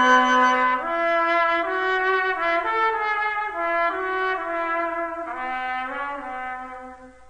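Music: a solo brass instrument playing a slow melody one note at a time, fading out near the end.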